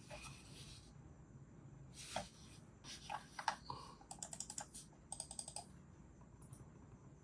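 Muted clicks from an A4TECH FM10S silent mouse: a few scattered clicks, then two quick runs of rapid clicking, about ten a second, around four and five seconds in.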